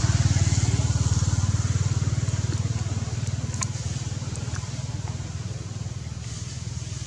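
A small engine running steadily with a fast low pulse, slowly fading away. A few faint clicks come about halfway through.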